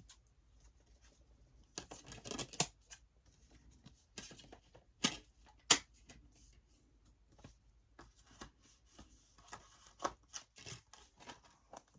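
A metal DVD case, its discs and paper inserts being handled: scattered rustling and light clicks, with a few sharp snaps about two and a half, five and nearly six seconds in.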